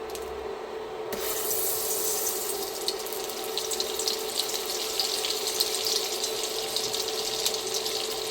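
Butter melting and sizzling in hot olive oil in a frying pan, a steady crackling hiss that starts suddenly about a second in, over a steady hum.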